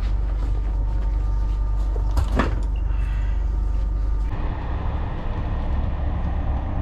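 Steady low rumble of a passenger vehicle in motion, heard from inside, with a single sharp knock about two seconds in. About four seconds in it changes abruptly to another, duller steady rumble.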